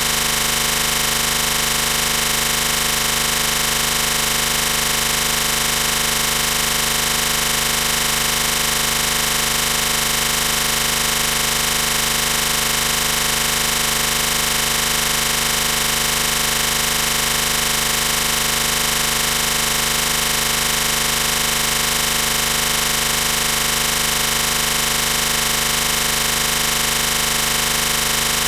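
Synthesised MRI scanner sequence sound, an imitation of gradient-coil noise: a loud, steady drone made of many fixed pitches sounding together, unchanging throughout.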